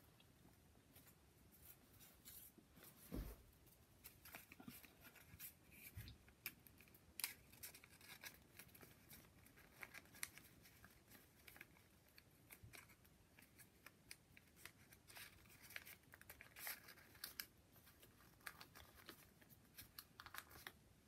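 Faint rustling and crinkling of folded origami paper as modular units are handled and their flaps tucked together, many small irregular crackles, with a soft knock about three seconds in.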